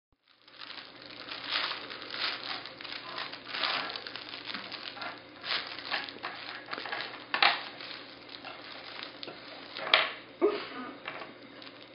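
Soft crinkle cloth baby book rustling and crinkling in irregular bursts as a baby grabs and pulls at it, with a couple of sharper knocks about seven and a half and ten seconds in.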